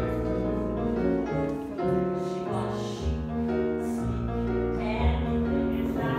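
Show-tune accompaniment with piano and held chords over a bass line, the chords changing about once a second.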